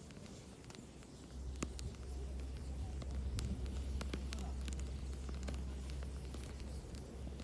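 Wood fire crackling with scattered sharp pops, and a low wind rumble on the microphone that swells about a second and a half in and holds.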